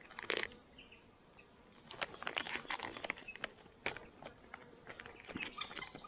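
Foil freeze-dried meal pouch crinkling and crackling as it is handled and its top pressed closed, in a dense run of quick crackles through the second half. A single short rustle or knock comes about a third of a second in.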